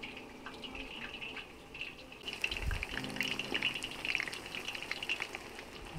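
Battered potato pakora deep-frying in a large pot of hot oil, a dense crackling sizzle that grows busier and louder a little past halfway. There is a low thump near the middle.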